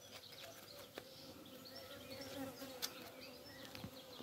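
Honeybees buzzing faintly around an opened hive, a steady hum that wavers a little in pitch, with a couple of faint clicks.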